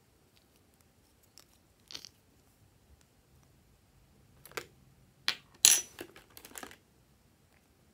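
Lipstick tubes being handled: a couple of faint taps about two seconds in, then a quick run of sharper clicks and taps past the middle.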